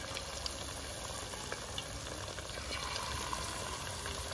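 Battered chicken strips deep-frying in hot oil in a wide metal pan: a steady bubbling sizzle with scattered small pops.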